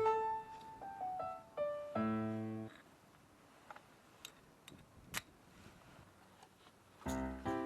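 Background music of short pitched, piano-like notes, which stops about three seconds in. A quiet gap of about four seconds follows, with a few faint clicks, before the music comes back near the end.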